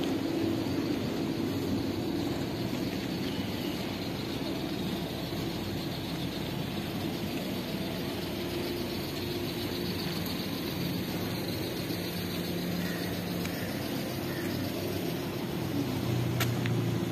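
Street traffic ambience: a steady hum of motor vehicles with an engine idling close by, a little louder at the start and again near the end.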